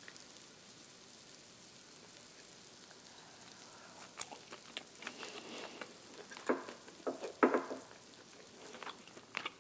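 Korean beef sizzling faintly on a hot tabletop griddle, a steady hiss. From about four seconds in, short clicks and a few louder knocks of chopsticks and dishes sound over it, the loudest about seven seconds in.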